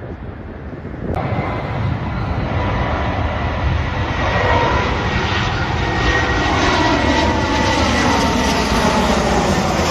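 Aeroplane engines running loudly as the aircraft passes close by: a roar with a steady high whine, and tones that slide down in pitch as it goes by. The sound starts abruptly about a second in.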